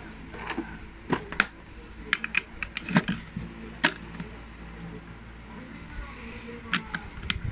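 Plastic Lego bricks clicking and knocking as a small brick-built gumball machine is handled and its top pressed on: a scatter of sharp clicks through the first four seconds, then a couple more near the end.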